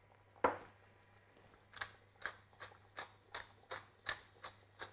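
Wooden pepper mill being twisted to grind pepper, giving a regular run of short crisp clicks, about two or three a second, from a couple of seconds in. A single louder knock comes about half a second in.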